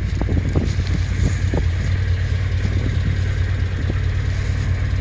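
Built Honda K20/K24 hybrid four-cylinder engine, with a K24 bottom end, high-compression pistons and a ported head, running steadily just after being started.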